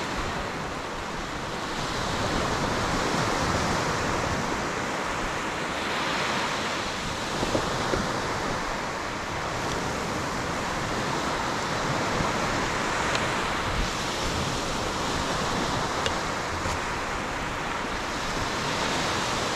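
Small surf breaking and washing up a sandy beach, a steady rush that swells and eases with each wave.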